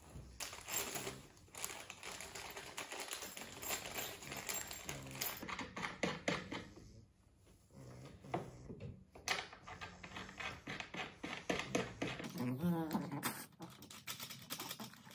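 Hands handling flat-pack sofa hardware: metal pins and fittings clicking and rattling against each other and the wooden frame, in runs of quick clicks with short pauses. About thirteen seconds in, a brief sound with a wavering pitch.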